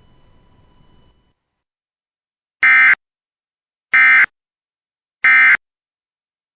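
Emergency Alert System end-of-message (EOM) code: three identical short bursts of digital data tone, about a third of a second each and just over a second apart, that close the alert. Before them, a faint hiss with a thin steady tone stops about a second in.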